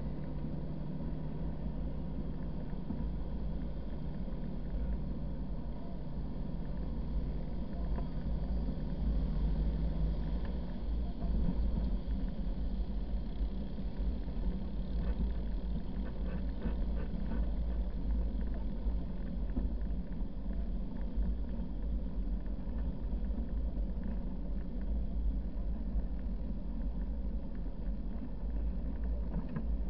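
Car or truck driving along a sand beach, heard from the vehicle itself: a steady low rumble of engine, tyres and wind.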